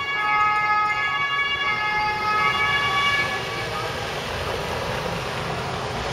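Emergency vehicle's two-tone siren, switching back and forth between two pitches, cutting off about three seconds in and followed by a steady rush of vehicle noise.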